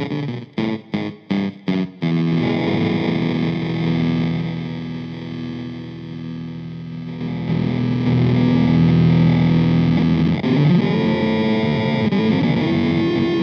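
Electric guitar played through an RPS Effects Bit Reactor bit-crusher pedal, giving a distorted, lo-fi sound: a quick run of short choppy stabs for about two seconds, then sustained ringing chords, with the pitch bending upward after about ten seconds.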